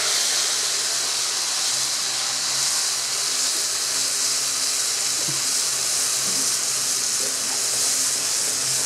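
Wet mustard-seed, dried-chilli and garlic paste frying in hot mustard oil with a steady, loud hiss while it is stirred with a wooden spatula.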